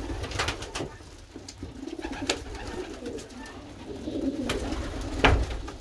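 Racing pigeon hen cooing low and repeatedly, with about five sharp clicks, the loudest near the end. She is agitated, guarding her young squab.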